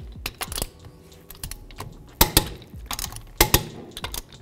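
Torque wrench clicking as the wheel's lug bolts are tightened to 103 foot-pounds: sharp clicks coming in close pairs, two loud pairs about a second apart, with lighter clicks between.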